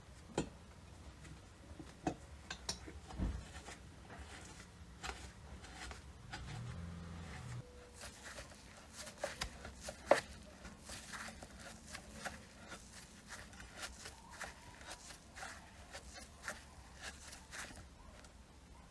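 Scattered light clicks and taps, with one sharper knock about ten seconds in and a short low hum lasting a second or two about six seconds in.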